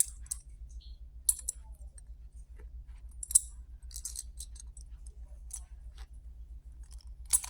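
Small plastic and metal Beyblade parts clicking and clinking as they are handled and fitted together, in scattered sharp clicks, the loudest about three and a half seconds in and near the end.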